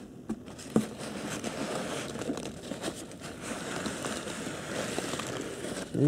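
Foam packing peanuts rustling as hands dig through them and lift out a cardboard box, with a couple of light clicks near the start.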